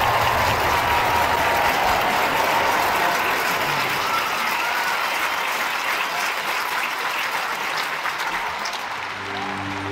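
Theatre audience applauding, the clapping dying away a little near the end.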